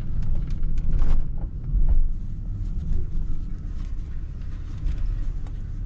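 Loaded truck running low and steady as it creeps onto a scrap yard weigh scale, with a few light knocks in the first couple of seconds.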